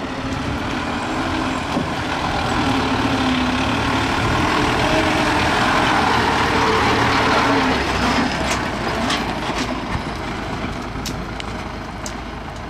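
ZIL fire engine driving past on a gravel track. Its engine and tyre noise build up as it comes close, loudest about six to seven seconds in, then fade as it pulls away.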